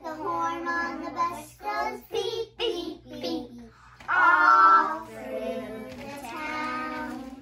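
A group of preschool children singing a song together in their small voices, loudest on a held phrase a little past the middle.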